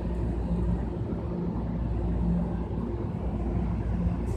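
Train of multilevel coaches hauled by an ALP-45DP diesel locomotive, running with a steady low rumble and a droning hum that comes and goes.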